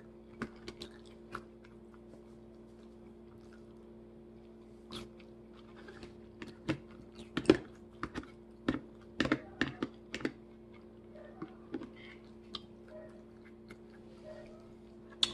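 A person chewing and crunching salad close to the microphone, with irregular sharp mouth clicks that come thickest in the middle stretch. A faint steady hum runs underneath.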